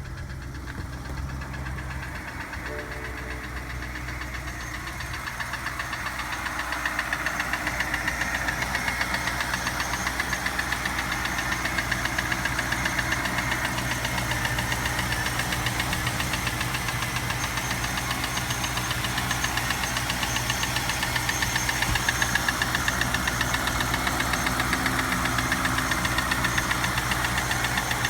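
An engine running steadily with a regular rhythmic knocking pulse, growing louder over the first several seconds and then holding.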